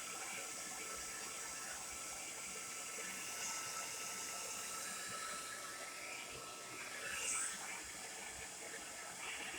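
Tresemme Salon Smooth Professional hair dryer running steadily: a continuous rush of air with a faint steady motor whine, swelling a little about every three to four seconds.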